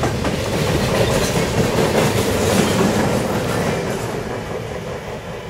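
Freight cars rolling past on the rails, a dense steady wheel-and-rail noise that dies away over the last couple of seconds as the end of the train goes by.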